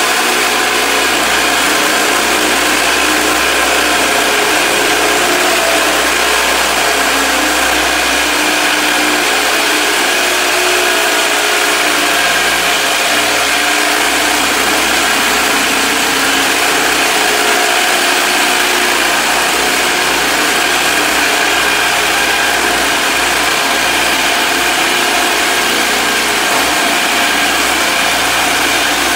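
Electric walk-behind floor stripper running steadily, its blade peeling a strip of vinyl floor covering up off the concrete.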